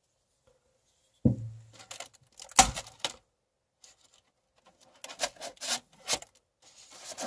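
Plastic film over a frozen lasagna tray being pierced to vent it: a knock, a louder crackle about two and a half seconds in, then a quick run of five or six sharp pokes.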